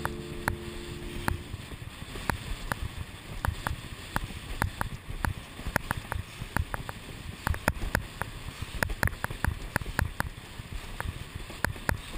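Windsurf board planing over small chop: the hull slaps the water in irregular sharp smacks, several a second, over a steady rush of water.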